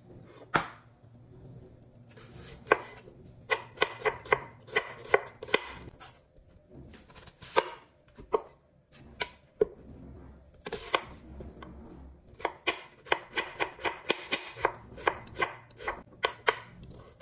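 Chef's knife slicing shallots and onion on a bamboo cutting board: runs of quick, sharp knife taps against the board, broken by short pauses.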